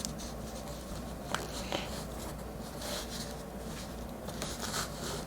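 A plastic action figure being handled and posed: a couple of faint clicks a little over a second in and soft rubbing scuffs near the end as its joints are moved, over a steady low hum.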